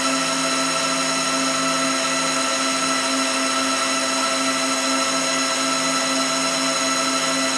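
A machine running steadily: a constant hiss with several steady whining tones over it, the lowest hum fading out for a few seconds partway through.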